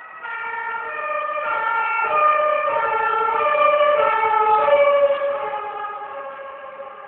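Emergency vehicle's German two-tone siren (Martinshorn) alternating between two pitches about every 0.6 s, growing louder to a peak about five seconds in, then fading and dropping slightly in pitch as the vehicle passes.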